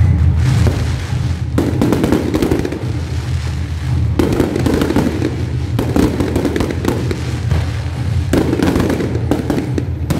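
Aerial fireworks show: a dense, continuous run of shells bursting, crackling and popping over a low rumble, in surges that thicken every couple of seconds.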